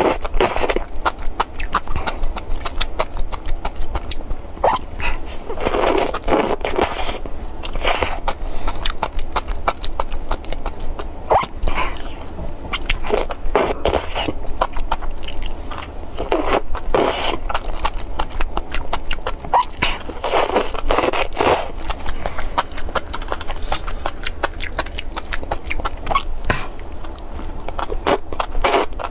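Eating sounds from bacon-wrapped enoki mushrooms in chili sauce: a slurp every few seconds as the mushroom strands are sucked in, with quick chewing clicks in between.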